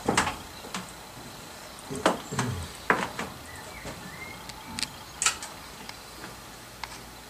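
Scattered clicks and knocks with a few louder thumps about two and three seconds in, over a low steady background, with a few faint short chirps.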